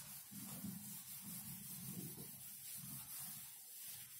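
Faint rubbing of a duster being wiped across a whiteboard, erasing it.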